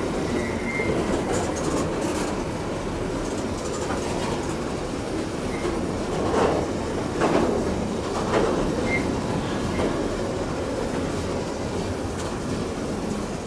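Steel wheels of coal wagons rolling over the rails in a steady rumble, with three louder clacks about a second apart in the middle. Brief faint wheel squeals come twice.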